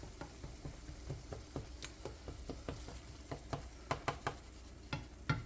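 Utensil clicking and scraping against a skillet of thick, reduced chicken chili sauce in irregular light taps, a few a second, as the sauce is stirred and scooped.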